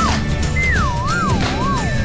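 Cartoon sci-fi flying-saucer beam sound effect: an electronic tone that warbles up and down about twice a second while sliding lower in pitch, over background music.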